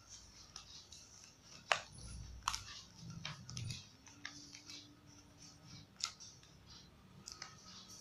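Car battery jumper cables handled by hand: light rustling of the coiled cables and their paper tag, with a few sharp clicks, the loudest about two seconds in.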